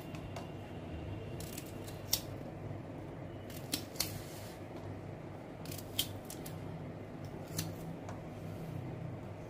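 A knife clicking and tapping on a chopping board as amla (Indian gooseberries) are cut: about five sharp, irregular clicks over a steady low hum.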